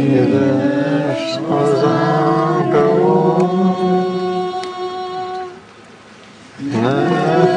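A woman singing a Hungarian folk song solo into a microphone, with long held notes that bend and slide in pitch. She stops for about a second, roughly six seconds in, then starts the next phrase.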